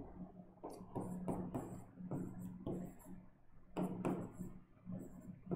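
Pen writing digits on a board: a run of short scratchy strokes a few tenths of a second apart, with a low steady electrical hum underneath.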